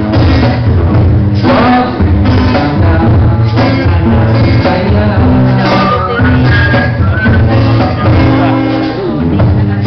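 Live acoustic group playing a song: male singing over strummed acoustic guitar and a cajón beat.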